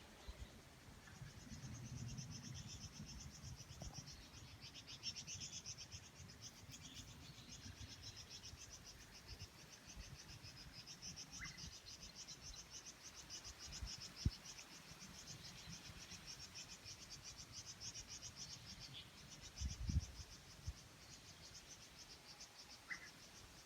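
Faint, high-pitched, rapidly pulsing trill of a calling animal chorus, running steadily, with low rumbles of wind on the microphone and a couple of soft low thumps.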